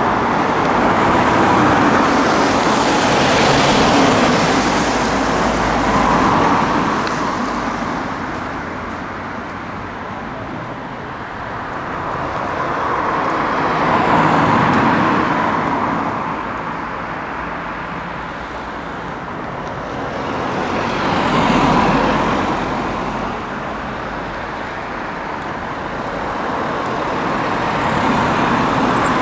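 Road traffic passing: several vehicles go by one after another, each rising and fading over a few seconds.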